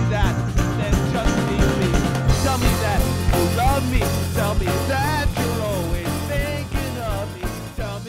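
Background music: a rock-pop song with a steady beat and a gliding melody line on top, beginning to fade out near the end.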